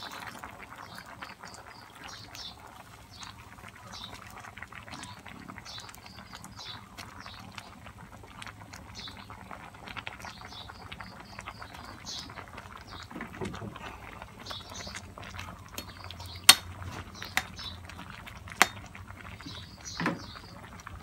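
Aluminium pot of moringa-pod curry bubbling at a boil, with two sharp knocks near the end.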